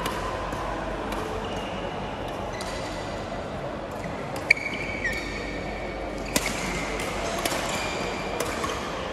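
Badminton rally: several sharp racket-on-shuttlecock hits, the loudest about four and a half seconds in, with court shoes squeaking on the hall floor between them, over faint background chatter.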